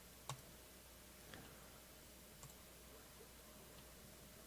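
Computer mouse clicking, three single clicks about a second apart, over near-silent room tone: the randomize button being clicked one run at a time.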